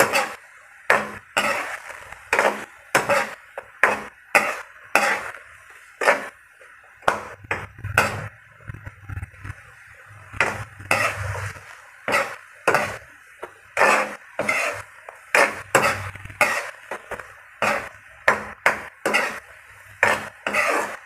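A spatula scraping and knocking against a wok, about two strokes a second, as onion rings are stirred in simmering sauce.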